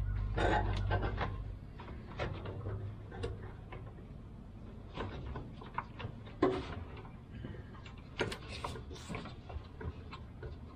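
Irregular clicks, taps and clunks of hands and tools working on a van's fuel tank and fuel lines from underneath. A low hum fades out over the first second and a half.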